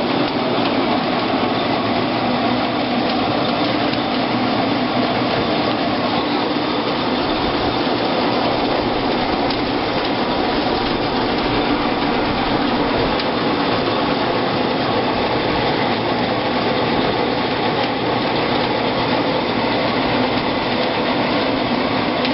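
Grape crusher-destemmer running steadily as a batch of Pinot Noir grapes goes through it, a continuous loud mechanical noise.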